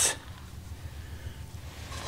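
Quiet steady room tone with a low hiss; no distinct sound stands out.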